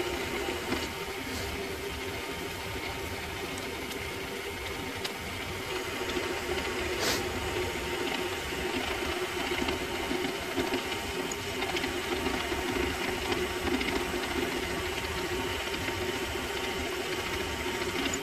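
Mini lathe running steadily while a twist drill in the tailstock chuck is fed into the spinning workpiece: a continuous motor hum with cutting noise, and one sharp click about seven seconds in.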